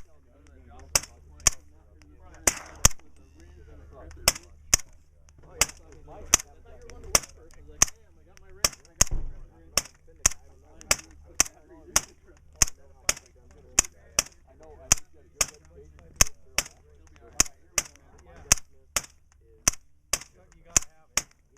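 Suppressed firearm shooting a long string of semi-automatic shots, dozens of sharp cracks at about two a second with short pauses here and there.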